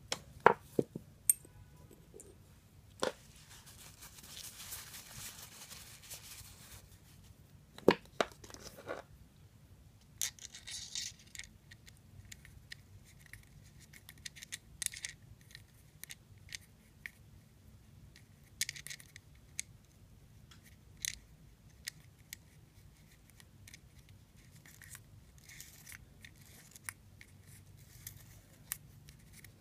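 Scattered small clicks, taps and scrapes of metal and plastic parts as a Shimano spinning reel is reassembled by hand with a small screwdriver, with a few seconds of soft rubbing about four seconds in.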